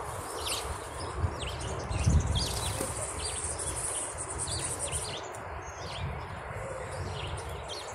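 Small birds chirping in short, quick falling notes, scattered throughout over a steady outdoor background hiss. A thin, steady high buzz holds for a few seconds in the middle.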